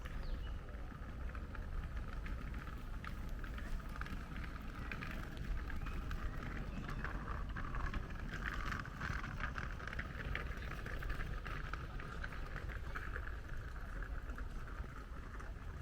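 Forest ambience: a steady low rumble under a dense patter of small clicks and crackles that grows busier midway.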